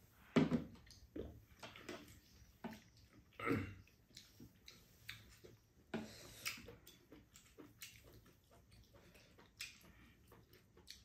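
Eating sounds at the table: slurping and chewing of rice cakes, with scattered light clicks of chopsticks against bowls. A louder slurp comes about half a second in and another about three and a half seconds in.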